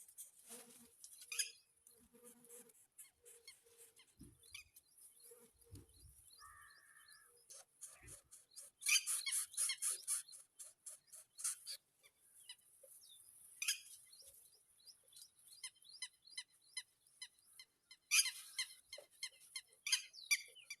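A bird giving rapid runs of very high-pitched squeaky chirps in bursts, with quieter gaps between.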